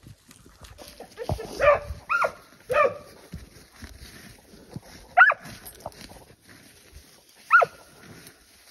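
A scent hound on a tracking lead barking on a wild boar's trail: short yelping barks that drop in pitch, three in quick succession about two seconds in, then single barks near the middle and near the end.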